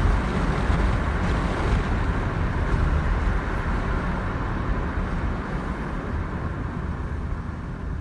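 2013 Toyota Corolla on the move: a steady low rumble with road noise, slowly fading. The car has a new noise, which the owner says comes only under acceleration and is not an exhaust leak.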